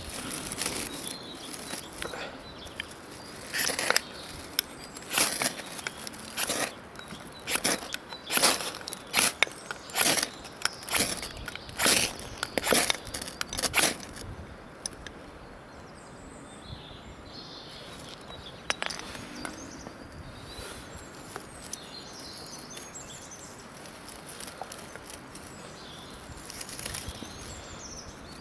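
A fire-steel rod (magnesium/ferro rod) scraped hard with a knife, about fifteen quick rasping strikes roughly one a second, throwing sparks onto wood shavings. The strikes stop about halfway through, once the shavings catch, and only faint high chirps and light rustling follow.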